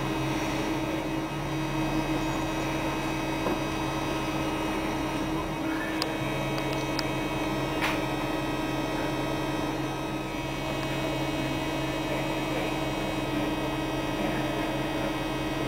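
Steady mechanical hum inside a double-decker city bus crawling through traffic: the bus's engine and ventilation running, with several steady tones over a noisy drone. A few faint clicks come about halfway through.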